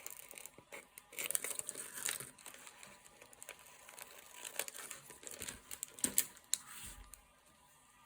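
Thin plastic packaging crinkling and crackling as it is handled, in irregular bursts that die away about a second before the end.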